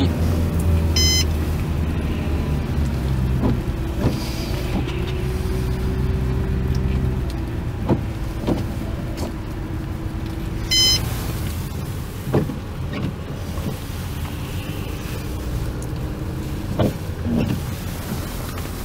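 Vehicle driving on a snow-covered road, heard from inside the cabin: a steady low drone with a few scattered knocks. A short high electronic beep sounds about a second in and again near eleven seconds.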